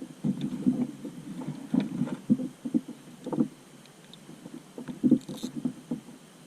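Irregular muffled knocks and rubbing against an inflatable boat's hull as gear is handled, with a brief hiss about five seconds in.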